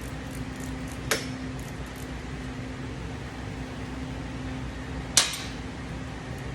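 Two sharp metallic clinks about four seconds apart, the second louder, from tools at work on a motorcycle engine being taken apart. Under them runs a steady hum with a constant low tone, like a shop fan.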